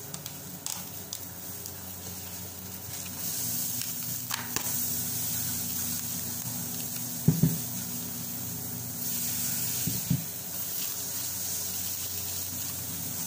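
Plastic cling film being pulled off its roll and stretched around a bagged bundle: a hissing plastic rustle that grows louder about three seconds in. Two dull thumps come later, one about seven seconds in and one about ten seconds in.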